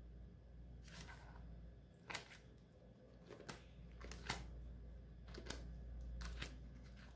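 Clear plastic pocket pages of a ring binder being turned by hand: soft handling with several light clicks and taps, the sharpest a little past halfway.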